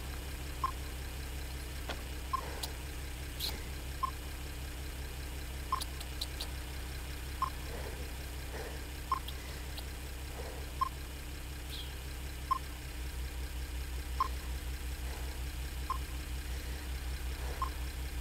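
A car engine idles with a steady low rumble that turns to an even throb about two-thirds of the way in. Over it, a pedestrian crossing signal's locator tone gives a short beep about every second and a half.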